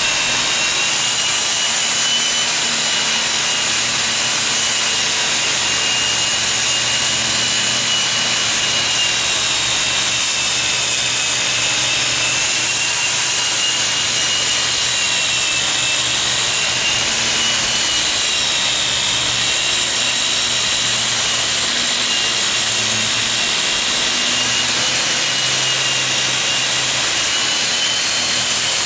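Corded electric angle grinder running continuously against a caboose's rusty riveted metal roof, grinding off old paint and rust ahead of primer. It makes a loud, steady grinding noise with a high motor whine that wavers slightly in pitch.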